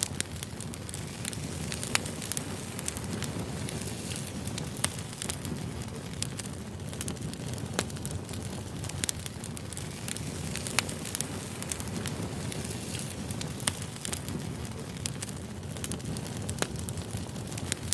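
Firewood burning: a steady low rumble of the fire with frequent irregular sharp crackles and pops.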